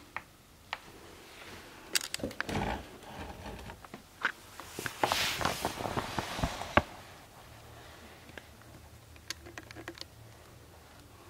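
Scratchy rustling and sharp clicks from a cat's head and fur rubbing against the phone camera and its microphone, loudest from about two to seven seconds in, with scattered small clicks before and after.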